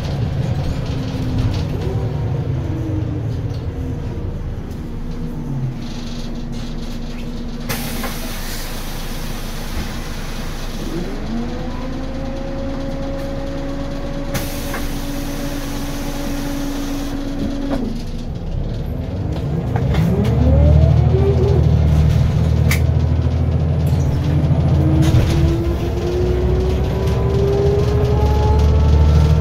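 Scania L94UB city bus with a ZF Ecomat 2 automatic gearbox: the gearbox whine falls as the bus slows, followed by two long hisses of compressed air. The engine drone and gearbox whine then rise again as the bus pulls away and climbs through the gears, loudest in the last third.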